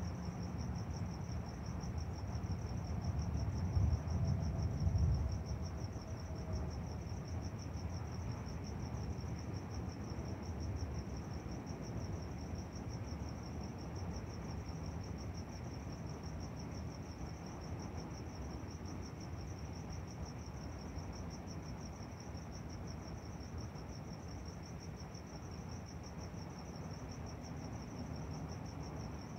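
Crickets chirping steadily in a high, even trill. A low rumble of distant thunder swells and fades from about three to six seconds in.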